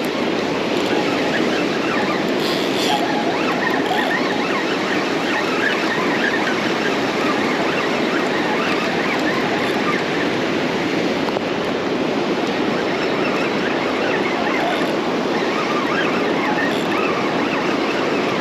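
Ocean surf breaking and washing on the shore, a steady rush of noise.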